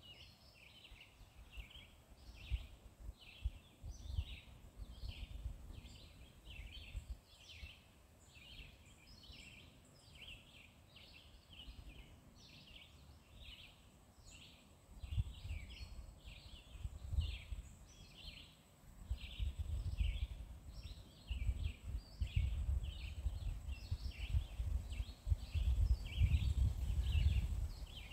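Steady rhythmic high-pitched chirping, about two chirps a second, from woodland wildlife. Gusts of low rumble come in from about halfway and are the loudest sound.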